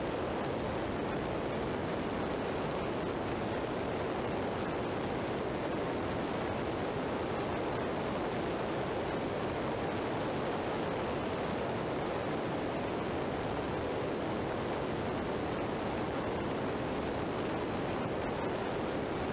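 Steady rush of wind and road noise on a camera mounted low on a motorcycle's front fairing at road speed, with tyre noise on asphalt and no engine note standing out.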